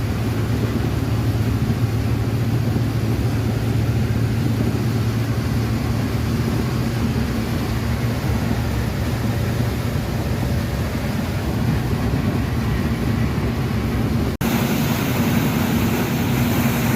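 Fishing boat's engine running steadily underway, a low drone with wind and water noise over it. The sound drops out for an instant near the end, and the hiss is stronger after that break.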